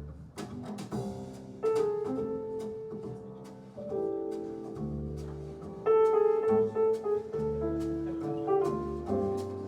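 Jazz recording of piano chords with a walking double bass, played back over TAD Compact Evolution One TX loudspeakers.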